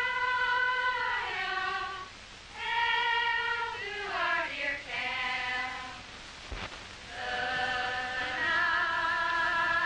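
A group of young voices singing together in slow, long-held notes, the melody stepping down at the ends of phrases, with short breaks between phrases. There is a single brief click about two-thirds of the way through.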